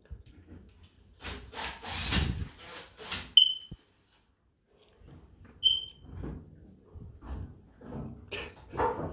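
Rustling, rubbing and light knocking of work in a small bathroom, with two short high beeps about two seconds apart.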